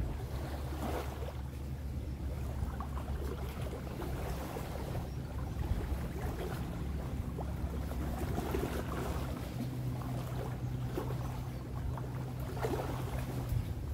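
Steady low drone of a motorboat engine, with small waves lapping at the shore and wind swelling and easing. A second, higher engine tone joins about two-thirds of the way through and stops just before the end.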